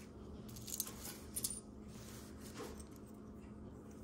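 Faint clinks and rustles of metal costume jewelry being handled and picked up from a pile, a few soft taps around half a second, a second and a half and two and a half seconds in, over a faint steady hum.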